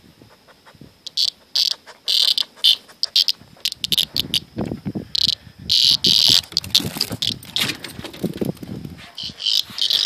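Live cicada held between fingers, giving repeated short, loud buzzing bursts (its distress buzz when handled), starting about a second in. Lower scuffling noises run beneath the buzzing in the second half.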